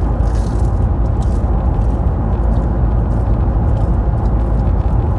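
Steady low rumble of a car's cabin with the car running, with faint small ticks over it.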